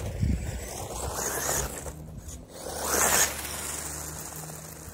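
Electric RC desert buggy driving in short bursts through grass, three rushing swells of motor and tyres scraping through the grass, with its small tyres struggling on it.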